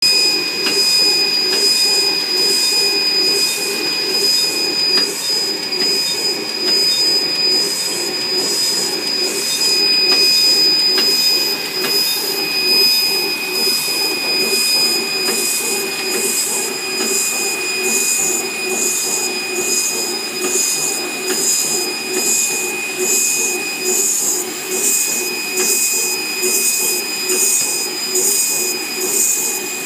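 Automatic candle printing machine running: a steady mechanical hum of its chain conveyor and drive, with a constant high-pitched whine and a hiss that pulses in a regular rhythm.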